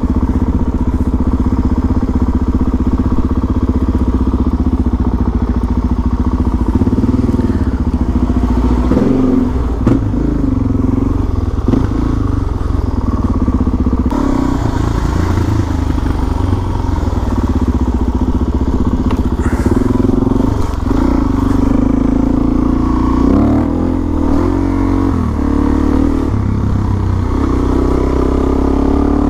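Suzuki DR-Z400SM's single-cylinder four-stroke engine running as the bike is ridden. Its pitch rises and falls several times with the throttle, mostly in the second half.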